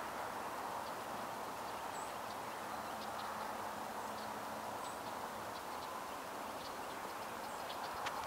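Steady outdoor background hiss, with a few faint high bird chirps.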